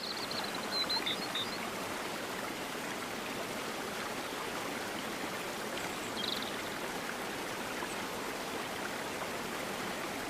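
Water splashing steadily down a backyard pondless waterfall, with a few short, high bird chirps near the start and about six seconds in.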